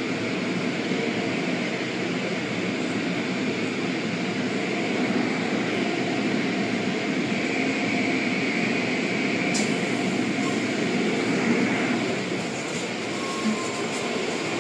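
Automatic car wash running: a steady rumbling, rushing noise of machinery and water, with a higher hiss joining about ten seconds in.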